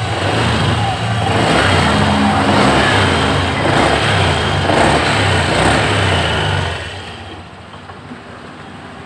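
Honda Scoopy scooter engine running under throttle. It is loud at first, then drops away sharply about seven seconds in.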